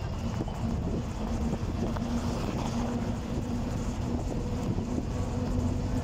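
Interior of a moving vintage city bus: the engine and drivetrain run with a steady low rumble and a humming tone that breaks off and returns every second or so.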